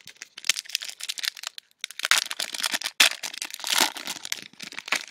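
Trading card pack wrapper being torn open and crinkled in the hands: a dense run of crackling that grows thicker from about two seconds in.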